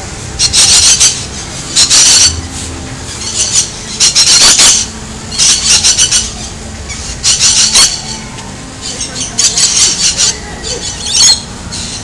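Rainbow lorikeets screeching: harsh, shrill calls in short bursts about once a second.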